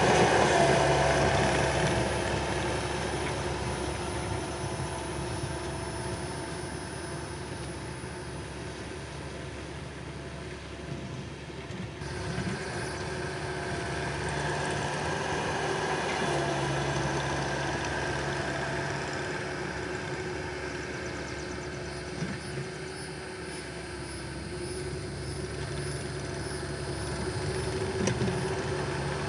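Bobcat skid steer engine running under load while grading soil, its note rising and easing as the machine works back and forth.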